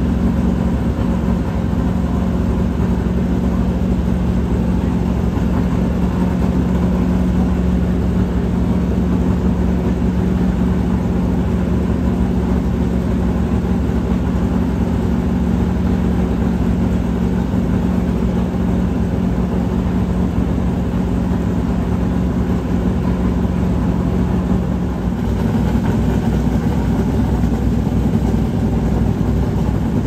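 Race car engine running at a steady held speed in a garage stall, an even drone. About 25 seconds in the drone gives way to a rougher, uneven engine noise.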